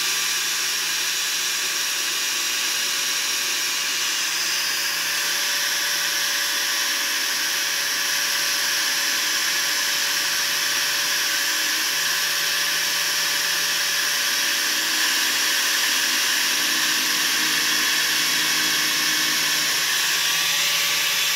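Small electric angle grinder running steadily, fitted with a homemade paper cutting disc that is pressed against a plastic motorcycle helmet shell. It gives a constant high whine with no change in speed.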